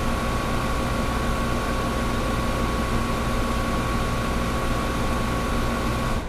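Old window air conditioner running: a steady whir of air and fan with a constant electrical hum. Just before the end the sound drops off abruptly.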